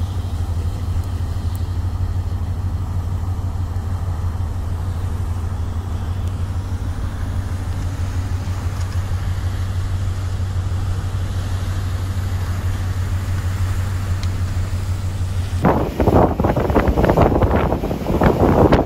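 Steady low drone of a ship's engines and machinery, heard aboard a vessel moving through sea ice alongside an icebreaker. Near the end it cuts off suddenly to loud, gusty wind buffeting the microphone.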